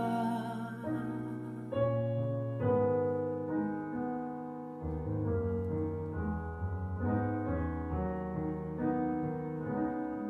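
Piano accompaniment playing slow, held chords with no singing.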